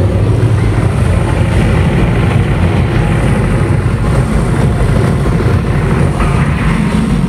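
Loud, rumbling engine- or aircraft-like sound effects from a stage performance soundtrack played over the hall's speakers, heavy in bass and dense without a clear tune.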